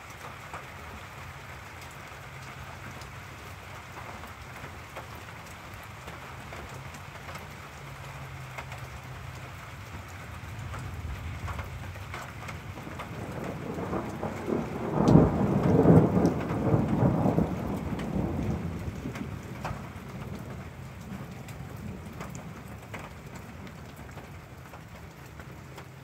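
Steady rain falling during a thunderstorm, with a long roll of thunder that builds from about ten seconds in, is loudest a little past the middle, and fades away over several seconds.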